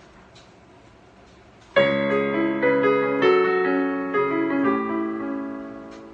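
Piano playing: faint hiss with a few small clicks, then a loud chord about two seconds in, followed by a run of held chords and notes that slowly die away near the end.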